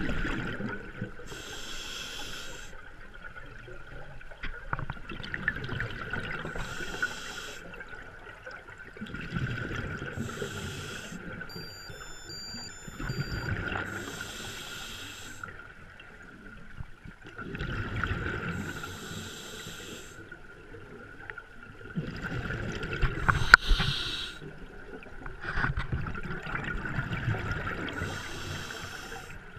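A scuba diver breathing through a regulator, heard underwater: a regular cycle of breaths about every four to five seconds, each a hiss followed by a low rush of exhaled bubbles. A steady faint high hum runs underneath.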